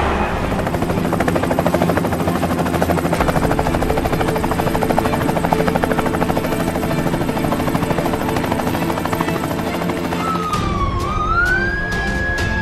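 Helicopter rotor sound effect for a flying four-rotor craft, a fast, steady chopping over background music. About ten seconds in, a police siren starts wailing, dipping, then rising and holding.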